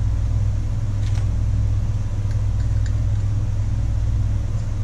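A steady low hum runs throughout, with a few faint light clicks from small metal starter parts being handled, about a second in and again around two and three seconds.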